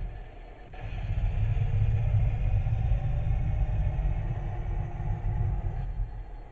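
Radio-controlled scale model Type 74 tank driving up the loading ramps onto its trailer. It makes a steady low rumbling engine-like drone with a faint wavering whine above it. The sound dips briefly just after the start, then swells and eases off near the end.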